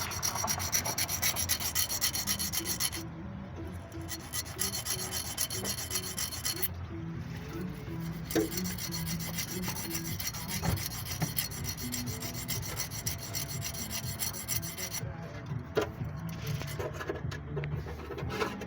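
A hand tool scraping and rasping against an engine part in long runs of strokes, pausing briefly about three, seven and fifteen seconds in.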